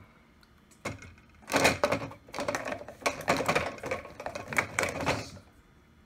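Plastic sippy cups and dishes clattering and knocking against the wire rack of a dishwasher as they are handled: a quick, uneven run of clicks and rattles starting about a second in and stopping near the end.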